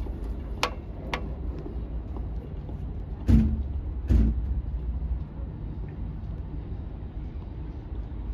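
Steady low rumble of city traffic, with two light clicks near the start as a lipstick cap is pulled off its tube, then two heavier knocks about three and four seconds in as the lipstick and cap are handled at the table.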